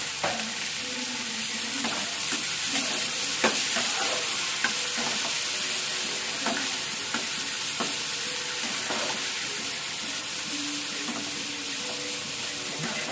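Chopped tomatoes and onions frying in oil in a kadhai, a steady sizzle, with scattered clicks and scrapes of a slotted spatula stirring them against the pan as the tomatoes cook down to soften.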